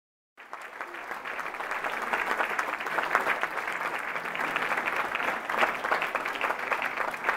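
Theatre audience applauding, the clapping fading in and then holding steady.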